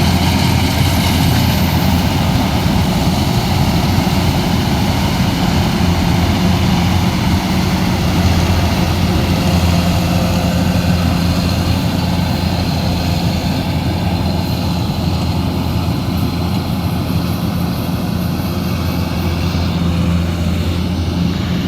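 Kubota DC105X rice combine harvester's diesel engine running steadily, a constant low hum with no change in speed.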